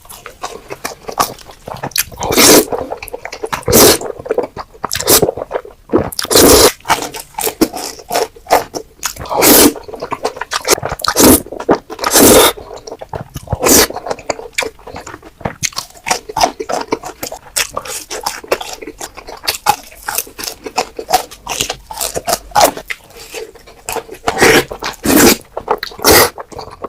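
Close-miked eating of Korean black bean noodles (jjajangmyeon): wet mouthfuls, slurps and chewing, loud and irregular, with a strong mouthful every second or two and softer chewing between.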